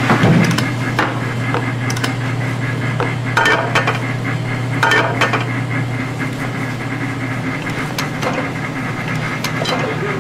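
Rectangular metal tamagoyaki pans knocking and clinking against the steel stove grates as they are handled, in scattered irregular knocks, some with a short metallic ring. A steady low hum runs underneath and fades out about two thirds of the way through.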